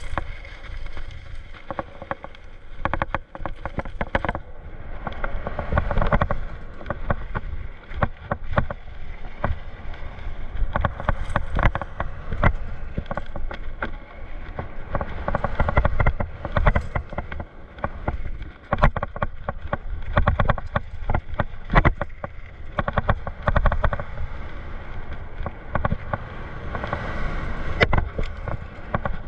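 Mountain bike descending a rough dirt trail: a steady rumble from the tyres and frequent irregular knocks and rattles as the bike goes over bumps.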